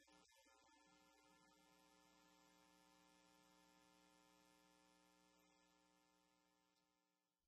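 Near silence: a faint, steady electrical hum that fades out near the end.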